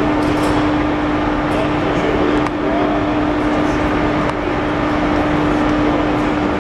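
Steady, loud machinery drone with a constant low hum, and a few faint clicks and knocks.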